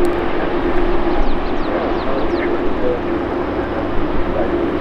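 Jet airliner engine noise at an airport runway: a steady rushing with a steady hum underneath. A few faint, short, high falling chirps come through about a second in.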